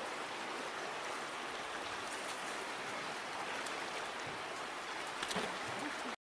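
Steady hiss of running river water, with a few faint ticks and splashes over it; it cuts off abruptly just before the end.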